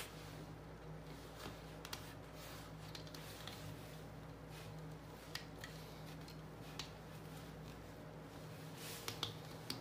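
Faint light clicks and rustling of cotton thread being drawn taut and wound around nail heads on a string-art board, a few sharper clicks scattered through and a small cluster near the end, over a low steady hum.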